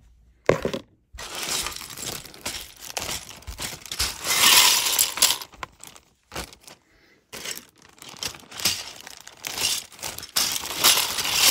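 Loose old LEGO bricks being poured out of a plastic bag into a plastic colander, a dense clatter and rattle of hard plastic pieces with the bag crinkling. Two bouts of pouring: the louder one about four to five seconds in, then another near the end.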